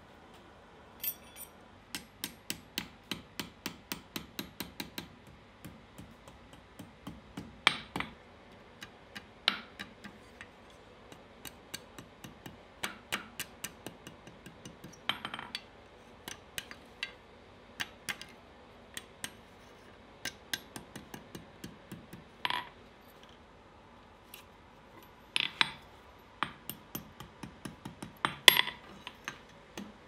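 Hand hammer striking a thin hot steel rod on an anvil as its end is bent and curled over the anvil's edge. The blows come in runs of quick light taps, about three a second, broken by a few louder single strikes.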